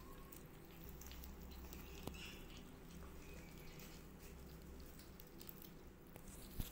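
Kittens eating dry cat food from a bowl: faint, scattered small crunches and clicks of kibble, with one sharper click about two seconds in.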